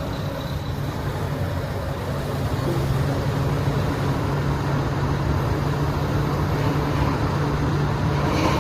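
Six-cylinder diesel engine of a Komatsu PC360LCi-11 tracked excavator running steadily, a little louder from about two and a half seconds in. A short hiss comes near the end.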